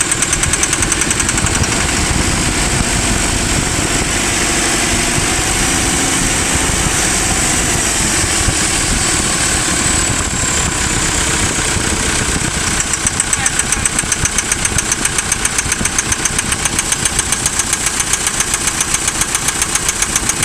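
JCB 4CX backhoe loader's Perkins diesel engine running, with a regular knock at low revs that the owner is trying to diagnose. It runs smoother through the middle, then from about two-thirds of the way through it settles into a strong, even pulsing knock at low revs.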